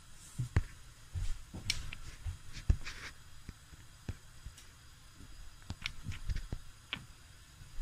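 Scattered light clicks and soft knocks, about a dozen spread irregularly, over a faint steady background hiss.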